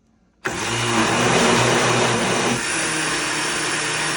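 Countertop blender switching on about half a second in and running steadily, blending a thick mix of pumpkin purée, applesauce, yogurt and watermelon; its motor note shifts and eases slightly about two and a half seconds in.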